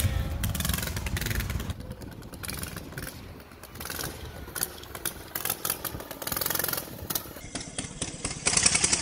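A gas mini bike's small engine running and being throttled as it rides along the street. It is loud for the first second or so, drops back as the bike moves off, and comes up loud again near the end as it passes close.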